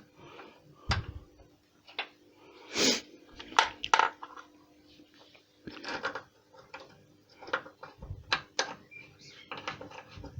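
Irregular small metal clinks and taps of bolts and hand tools as the mounting bolts of a bonnet lock are fitted back in by hand.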